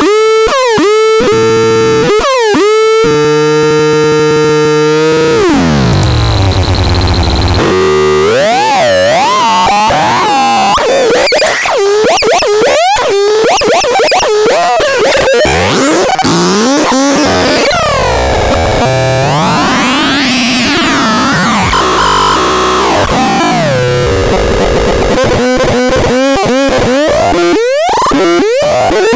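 Synthesizer playing loud, harsh electronic sounds. It starts with rapid pulsing notes, then holds a buzzy note that drops away in a downward glide about five seconds in. After that comes a noisy wash of warbling, swooping pitches.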